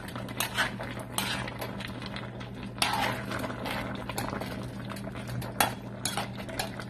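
A utensil stirring chunks of squash and pork cracklings in a thick coconut-milk sauce in a metal pot, with irregular clinks and scrapes against the pot, over a low steady hum.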